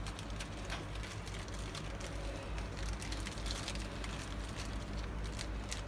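Steady low hum with a scattering of faint clicks and ticks.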